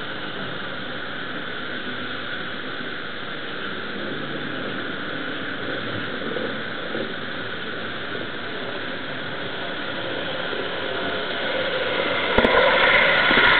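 HO-scale model railway running with a steady whirring rumble. It grows louder from about ten seconds in as a model train nears and passes close by near the end, with a sharp click as it comes in.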